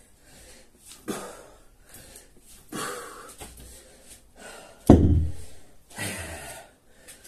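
A man breathing hard after heavy exercise, with sharp exhalations every second or two. One heavy thump on the floor about five seconds in is the loudest sound.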